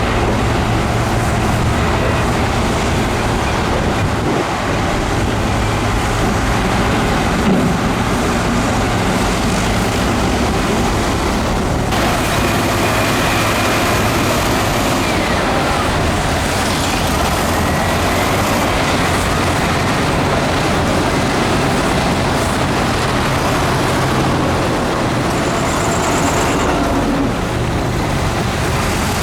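Heavy earthmoving machinery, the diesel engines of a bulldozer and dump truck, running steadily at work with a low engine hum under a noisy rumble. The sound changes abruptly about twelve seconds in.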